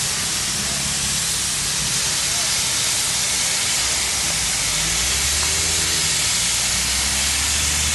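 Steady hiss of heavy rain, with a low steady engine hum underneath.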